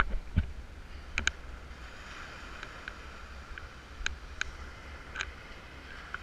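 Handling noise on an action camera: scattered light knocks and taps as it is moved about, over a low wind rumble on the microphone and a faint steady wash of surf.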